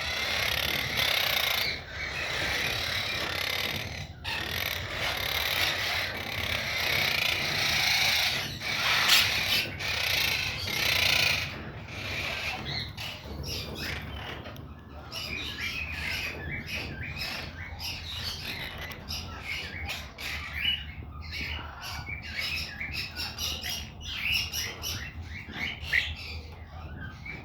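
Monk parakeet (quaker parrot) chattering in rapid short chirps through the second half. Before that comes a dense stretch of rustling, scratchy noise.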